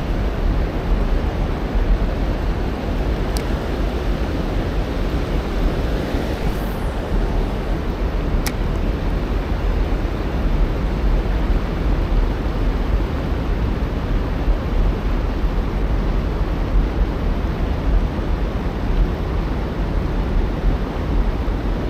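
Steady rushing roar of white water pouring below a river dam, with a low rumble of wind on the microphone. Two faint sharp ticks, about three and eight seconds in.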